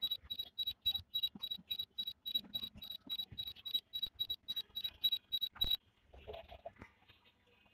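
Rapid high-pitched electronic warning beeps, about four a second, from the DJI Mini SE's controller app while the drone auto-lands. The beeping cuts off suddenly about six seconds in.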